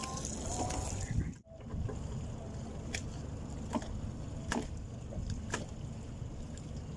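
Steady low rumble of wind and water with a few sharp clicks and knocks of handling, after a brief break about a second and a half in.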